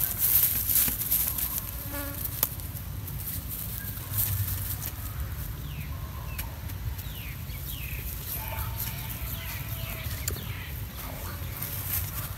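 Insects buzzing outdoors, with a steady low rumble underneath and a run of short, falling chirps in the middle.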